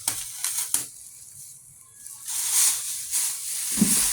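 Plastic packaging crinkling and rustling as a bass guitar is unwrapped: a few sharp crackles, a brief lull, then a longer rustle from about halfway through, with a dull thump near the end.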